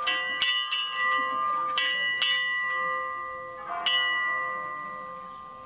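A single hand-rung church bell cast in 1734, swinging a distesa, its clapper striking the bronze in loose pairs of strokes with a long, many-toned ring. The last stroke comes about four seconds in, and the ringing then fades away.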